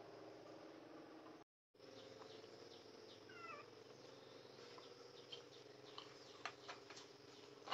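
Near silence: room tone with a faint steady hum that drops out completely for a moment about one and a half seconds in, a brief wavy chirp about three seconds in, and a few soft clicks near the end.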